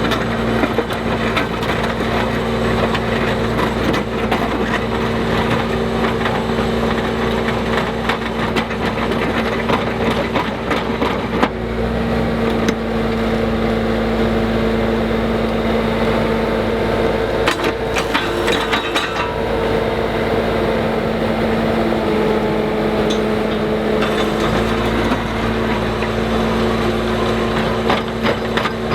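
Skid steer engine running steadily as it drives a hydraulic posthole auger, with a constant hum. Its note shifts about 12 seconds in and again near 24 seconds, and there is a short run of knocks and rattles in between.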